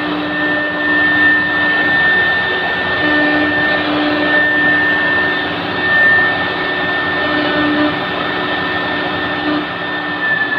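Three-head CNC router's spindle running with a steady high whine as its bit engraves a wooden door panel, with a lower hum that comes and goes as the cut moves.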